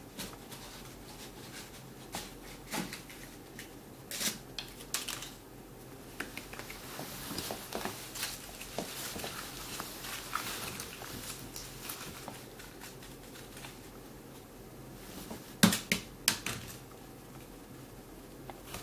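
A Siamese cat pawing around a wastebasket and paper balls: scattered crinkly rustling and light clicks, with a few sharper knocks about three seconds before the end.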